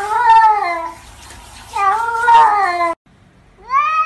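Cats meowing: two long, wavering meows, then after a sudden break a different cat's meow rising in pitch near the end.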